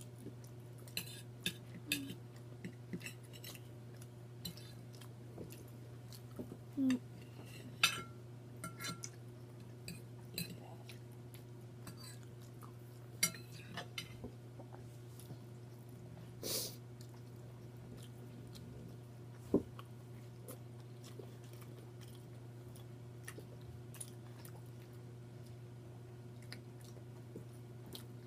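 People eating: chewing, with scattered light clicks of utensils and fingers against plates, over a steady low hum. The clicks and chewing bunch in the first half and thin out after that.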